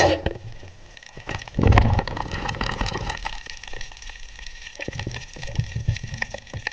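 Underwater sound heard through a camera housing while a speared fish is handled on the spear shaft: scattered crackling clicks, a sharp knock at the start and a louder low rumbling burst about two seconds in.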